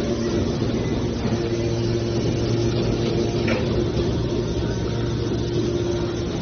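Hydraulic power unit of a small scrap metal baler running with a steady hum, with one short click about halfway through.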